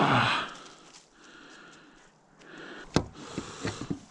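A short, loud breathy sniff right at the start, then about three seconds in a sharp knock and a few lighter taps of a metal multitool's pliers against wooden dock boards.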